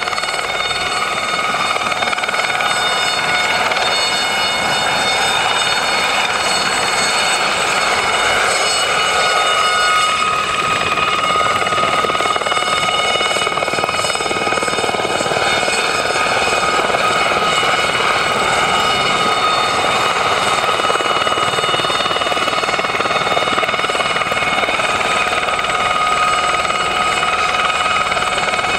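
Aérospatiale Gazelle helicopter hovering: the steady whine of its turboshaft engine and fenestron tail rotor, several high tones at once, over the fast beat of the main rotor. One of the tones grows stronger about ten seconds in as the helicopter moves across.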